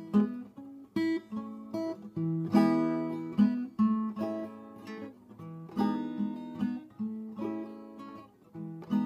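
Acoustic guitar with a capo, played solo: a run of chords, each new note or chord ringing on into the next.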